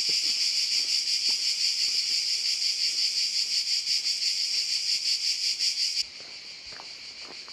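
A loud chorus of cicadas, a dense, rapidly pulsing high buzz. About six seconds in it drops suddenly to a fainter level, and a few faint footsteps on gravel come through.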